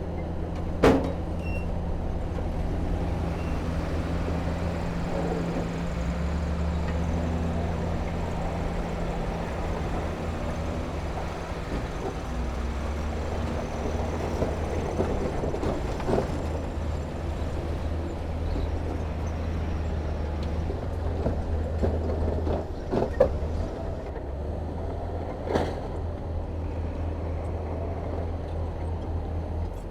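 Diesel engine of heavy earthmoving machinery running steadily at a low drone, with a few sharp clanks or knocks, the loudest about a second in and several more in the second half.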